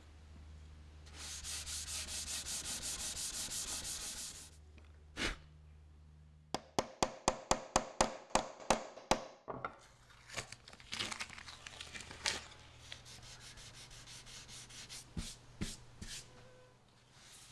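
Something rubbed against wood in quick, even back-and-forth strokes for a few seconds, then a run of about a dozen sharp clicks at roughly five a second, followed by scattered clicks and knocks over a low hum.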